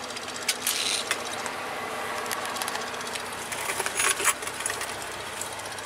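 Scania R500's V8 diesel engine idling steadily, heard from inside the cab. A few sharp clicks and short hissy bursts come about half a second in and again around four seconds in.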